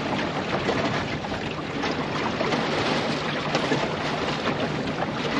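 Water rushing and splashing steadily along the hull of a small wooden sailing yawl making a good pace through choppy water, with wind blowing on the microphone.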